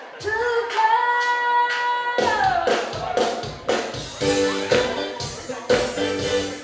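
Music with singing: a voice holds one long note that slides down, then the full band comes in about two seconds in with a steady beat.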